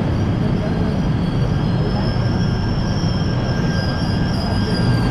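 KTM Komuter electric train pulling into an underground platform: a steady low rumble with a high squeal as it slows, the squeal rising a little and then falling before it cuts off as the train stops near the end.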